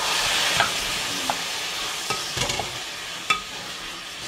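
Raw chicken pieces sizzling as they hit hot oil in a stainless steel pan, the sizzle loudest at first and slowly dying down as the cold meat cools the pan. Scattered clicks and scrapes of a spatula stirring against the pan.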